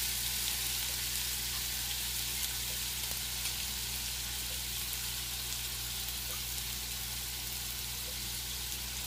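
Marinated goat chops shallow-frying in oil on an iron tawa over a medium gas flame: a steady sizzle with faint scattered crackles, over a steady low hum.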